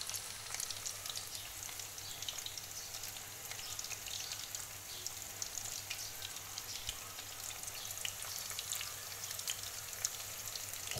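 Chicken threads, chicken wrapped in shredded samosa-pastry strips, deep-frying in hot oil in a pan: a steady sizzle full of small, quick pops and crackles.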